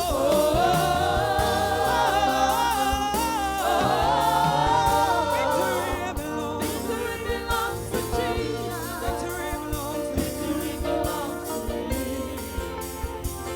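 Gospel praise music: sung vocals over a bass and drum kit, with the voices fading out about halfway through while the band plays on.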